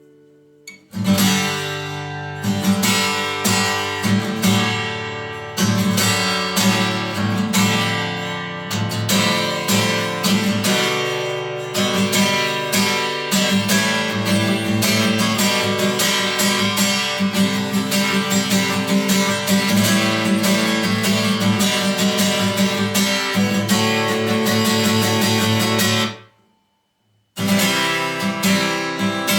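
Martin D-28 dreadnought acoustic guitar, with solid rosewood back and sides and a spruce top, being strummed in a steady run of chords. The playing starts about a second in, stops for about a second near the end, then resumes.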